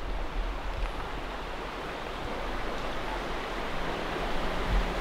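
Steady rushing of a small creek's water flowing over rocks below a footbridge.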